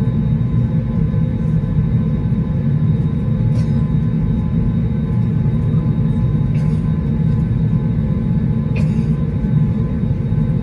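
Cabin noise of an Airbus A320neo taxiing: a steady low rumble from the engines with faint steady tones above it, and a few faint clicks.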